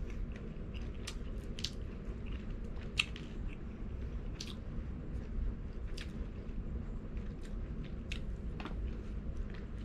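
Close-miked chewing of crispy fried chicken and rice, with irregular sharp crunches and mouth clicks, over a low steady hum.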